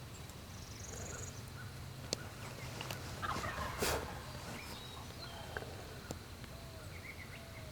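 Wild turkey gobbling once, a short rattling burst about three seconds in, with a sharp click a second before it.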